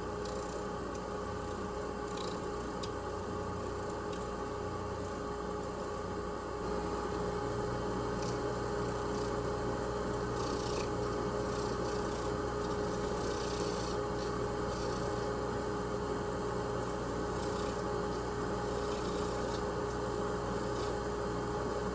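Mini lathe running with a steady motor hum while a roughing gouge and a round carbide tool cut spinning whitetail deer antler bead blanks down to a cylinder. The sound grows a little louder about seven seconds in.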